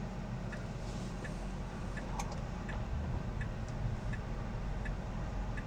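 Tesla Model 3's turn-signal indicator ticking evenly, about three ticks every two seconds, over a low steady rumble in the car's cabin.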